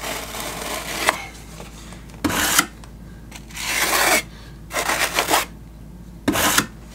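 Steel margin trowel scraping and smoothing thinset mortar across a waterproofing membrane on a shower floor, squeezing mortar out from behind it. It goes in about five separate scraping strokes.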